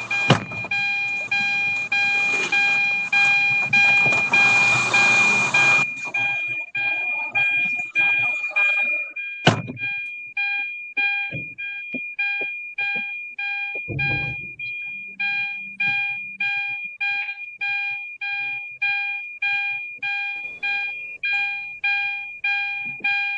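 An electronic alarm beeping rhythmically, about two beeps a second, over a steady high tone. The first few seconds are covered by a loud rushing noise, and there is a sharp click and a low thud partway through.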